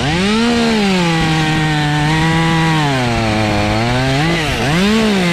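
Two-stroke chainsaw running at high revs, its engine note sagging lower in the middle as it comes under load in the wood, then revving up and down twice near the end.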